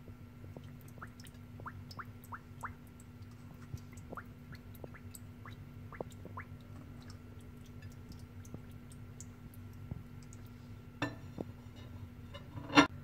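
Raw quails being lowered into a pot of water: a run of small dripping plinks, then a click and one sharp knock against the pot near the end, over a steady hum.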